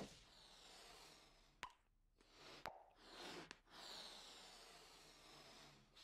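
Bubblegum in a boy's mouth: three sharp little pops, then a steady breathy hiss as he blows air into a growing bubblegum bubble.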